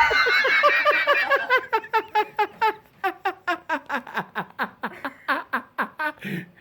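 High-pitched laughter: a long run of short "ha" pulses, about four a second, each falling in pitch, slowing and growing fainter near the end.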